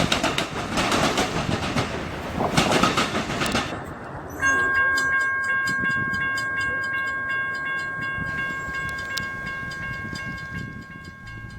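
A train rolls by with rushing wheel-on-rail noise, then about four seconds in a locomotive's air horn sounds one long chord, held steadily and slowly fading.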